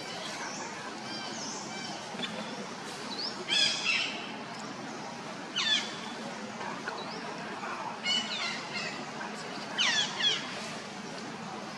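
Short, high-pitched animal calls, each falling steeply in pitch, repeated every two seconds or so over a steady outdoor hiss.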